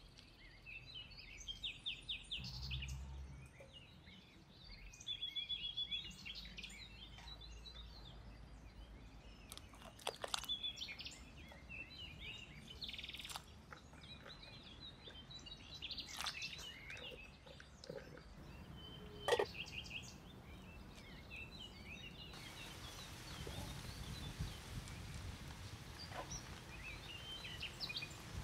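Small birds chirping and twittering over a low background hum, with a few sharp clicks and knocks scattered through, the loudest about two-thirds of the way in.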